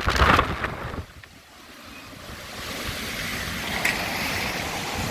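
Hurricane wind gusts: heavy wind buffeting on the microphone for about a second, then a sudden lull, then a rushing gust that builds back up and holds. Strong gusts near the peak of a hurricane's wind.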